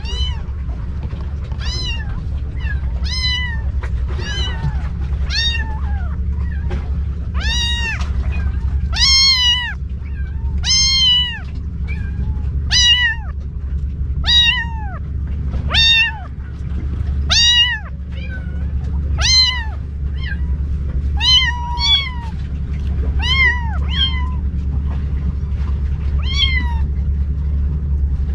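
Stray kittens mewing over and over, high thin calls about every second and a half, each rising and falling in pitch. A steady low rumble runs underneath.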